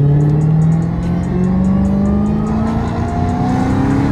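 Dodge SRT V8 engine accelerating, heard from inside the cabin, its note rising steadily in pitch as the revs climb through a gear.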